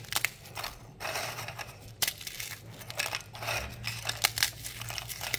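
Marie biscuits being snapped into large pieces by hand over a bowl: a string of crisp, irregular cracks and crackles, with pieces clicking onto the biscuits below.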